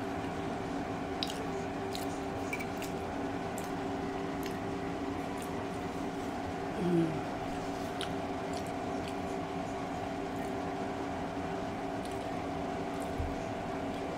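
Close-miked eating of sauce-soaked seafood boil: soft wet squishes and small sharp mouth and utensil clicks, over a steady background hum. A brief hummed 'mm' about halfway through is the loudest moment.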